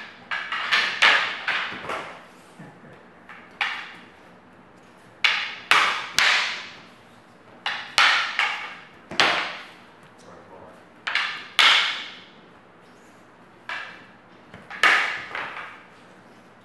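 Sparring sticks clacking together in bursts of several quick strikes with short pauses between, each hit sharp and ringing briefly.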